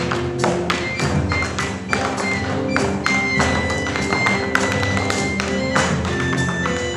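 Tap shoes striking the stage in quick, rhythmic clusters of sharp taps over instrumental music.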